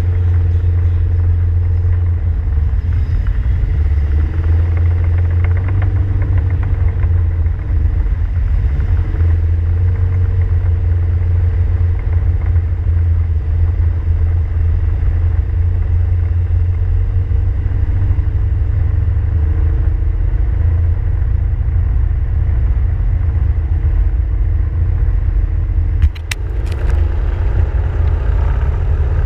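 Side-by-side UTV driving along a road, its engine and drivetrain giving a steady low rumble, with a brief dip in the sound near the end.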